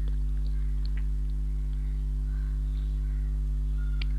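Steady low electrical hum, with a few faint clicks from handling a plastic syringe.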